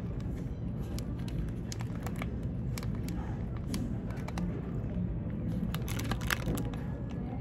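Plastic wrapper of a convenience-store onigiri crinkling in the hands, with many short crackles scattered throughout, over a steady low background hum.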